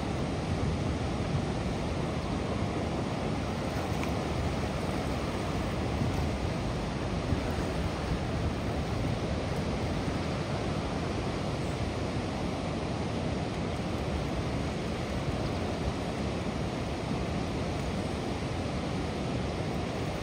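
Floodwater pouring over a weir and churning below it: a steady, unbroken rush of water.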